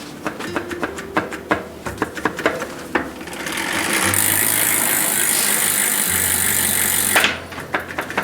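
Small clicks and rattles of work on a bicycle, then a loud steady hiss of about four seconds that cuts off abruptly, followed by more clicks.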